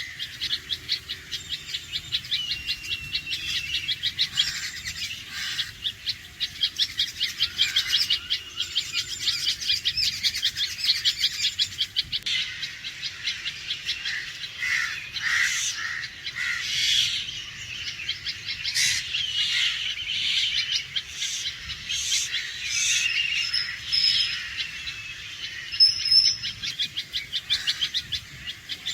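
Red-vented bulbuls giving alarm calls: a fast, steady run of short, sharp repeated notes, then from about halfway louder, more spaced sharp notes mixed with chatter.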